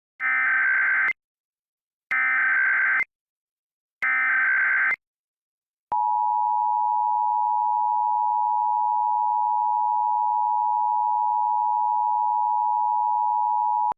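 Emergency Alert System broadcast tones: three one-second bursts of SAME digital header data about two seconds apart, then a long steady alert tone starting about six seconds in.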